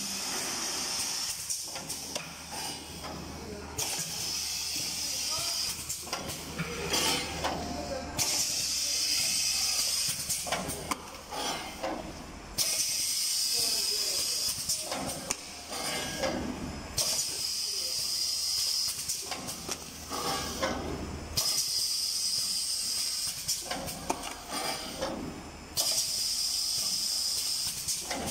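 Butter tub filling and sealing machine running: a steady high hiss over a low hum, cutting in and out abruptly every four seconds or so, with irregular mechanical clatter.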